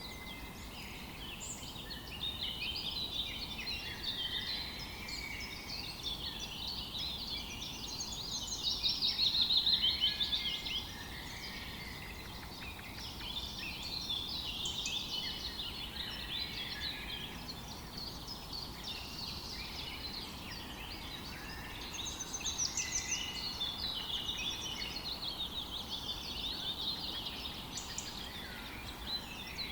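Several small songbirds chirping and trilling together in a dense, overlapping chorus, with louder rapid trills about a third of the way in and again past two-thirds, over faint background hiss.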